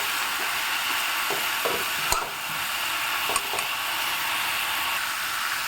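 Boiled banana flower sizzling steadily as it is stir-fried with spices in a kadai, with a few knocks against the pan, the sharpest about two seconds in.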